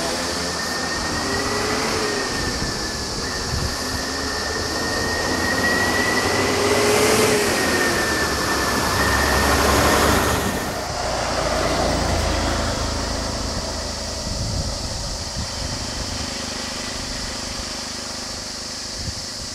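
Ashok Leyland bus passing slowly at close range, with a long, steady high-pitched squeal over its running engine for the first half that stops at about nine seconds. A low engine rumble follows as traffic moves on. A steady high insect drone runs underneath.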